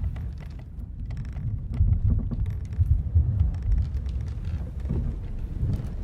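Ship-at-sea ambience: a low rumble of the vessel at sea that swells and eases, loudest in the middle, with scattered short creaks and knocks of the ship's timbers.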